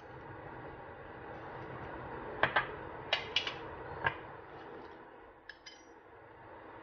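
Paella broth simmering in a pot with a steady bubbling hiss. About seven light, sharp clinks come in the middle, the last one ringing briefly.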